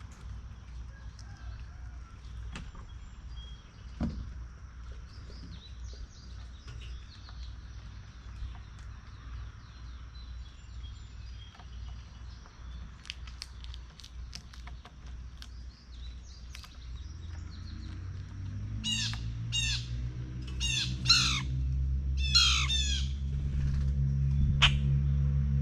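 Wild birds calling around a feeder: faint scattered chirps, then about two-thirds of the way in a quick run of loud, sharp calls that sweep downward in pitch. Under them a low humming drone, like a distant engine, grows steadily louder toward the end.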